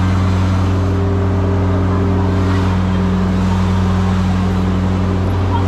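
Engine running steadily at a constant speed, a loud low drone that holds one pitch throughout.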